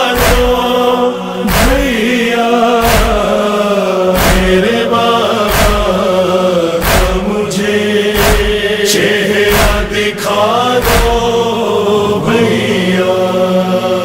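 A nauha, an Urdu mourning elegy for Imam Ali, chanted with long held, wavering notes over a steady heavy thud about every 1.3 seconds.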